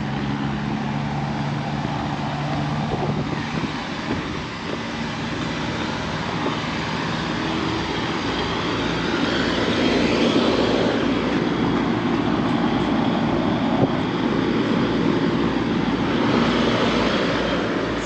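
Rooftop packaged air-conditioning units running: a steady rush of condenser fans with a low compressor hum. The rushing grows louder from about nine to twelve seconds in, and again near the end.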